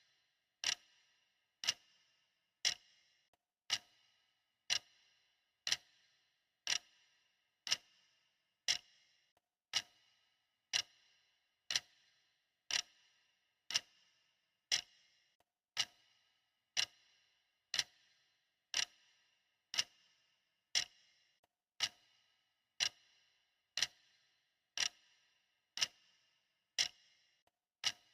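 Clock tick-tock, a sharp tick about once a second with a short ring, steady and even.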